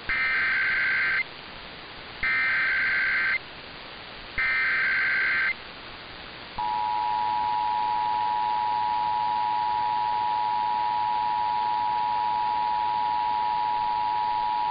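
Emergency Alert System SAME header: three short bursts of screeching digital data tones, about a second apart. About six and a half seconds in, the steady EAS two-tone attention signal starts and holds, announcing that an alert message, here a test, follows.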